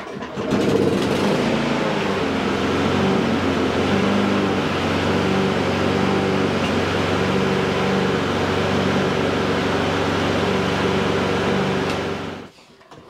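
Champion RV150 single-cylinder four-stroke lawn mower engine pull-started, catching at once and running steadily; the sound cuts off near the end. It starts really easy.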